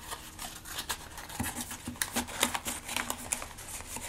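Small paper and plastic packaging being handled: irregular crackles, clicks and rustles, a little louder about midway.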